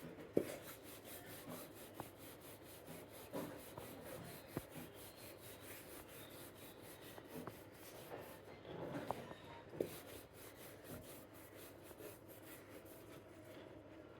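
Rolling pin working roti dough on a wooden board: faint rubbing and scraping, with a few light knocks.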